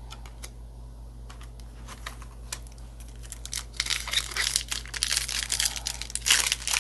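Foil booster-pack wrapper being handled and torn open: a few light clicks and rustles, then dense, louder crinkling from about four seconds in.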